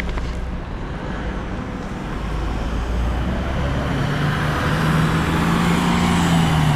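Street traffic: a steady low rumble of passing vehicles, with one vehicle's engine hum growing louder from about halfway through.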